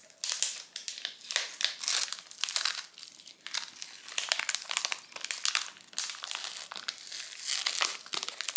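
Plastic wrapper and inner foil of a Cadbury Dairy Milk bar crinkling as it is torn open by hand, a rapid, irregular run of sharp crackles.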